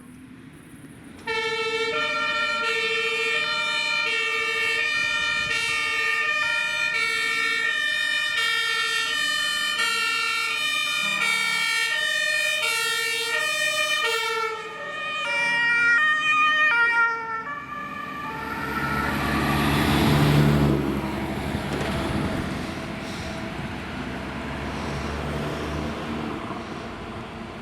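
Fire engine two-tone siren (German Martinshorn), alternating steadily between a high and a low note, then briefly switching to a faster-changing horn pattern. After that a heavy fire truck's engine and tyres rumble past, swelling to a peak and fading.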